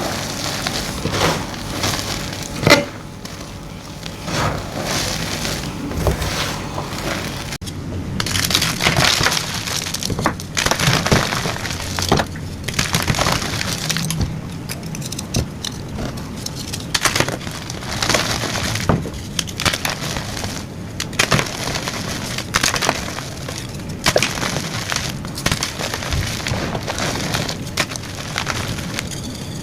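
Blocks of gym chalk being crushed and crumbled: a dense run of crisp crunches and snaps, with one sharper, louder crack a little under three seconds in.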